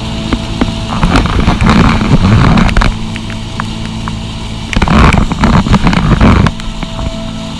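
A car engine runs steadily while driving through deep floodwater. Twice there is a loud rushing noise lasting a couple of seconds each, with scattered sharp clicks.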